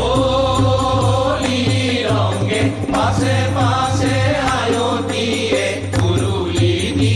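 Assamese Holi song (holigeet): a male chorus chanting together over a dholak drum, with taal hand cymbals keeping the beat.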